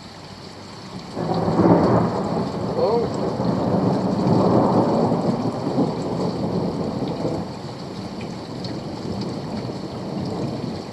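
A thunderclap breaks about a second in and rumbles on for several seconds, slowly fading, over the steady hiss of rain.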